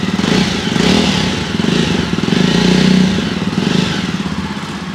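Jawa 42 Bobber's 334cc liquid-cooled single-cylinder engine running and being revved through its dual-tip exhaust. The exhaust note swells loudly a few times and eases off near the end.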